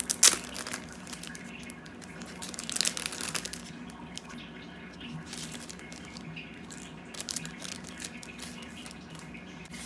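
Clear plastic packaging sleeve crinkling as it is peeled open and handled. The loudest crackle comes just after the start and another cluster about three seconds in. Steady fish-tank bubbling runs underneath.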